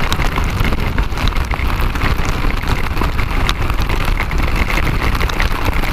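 Motorcycle at highway speed in heavy rain: a steady wind rumble on the camera microphone, with many raindrops ticking against it over an even hiss of rain and road spray.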